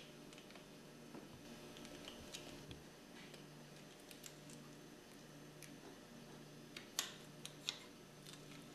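Faint metallic clicks and scrapes of large snap ring pliers working a snap ring out of its groove in a pump housing, with a few sharper clicks about seven seconds in.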